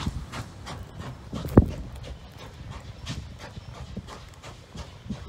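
Norfolk & Western 611, a J-class 4-8-4 steam locomotive, chuffing in an even rhythm of about three exhaust beats a second as it approaches. There is one louder thump about a second and a half in.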